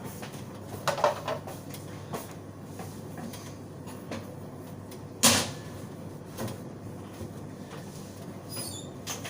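Scattered knocks and clunks as a coffee vending machine's parts and containers are handled during a refill, with the loudest, sharpest clunk about five seconds in.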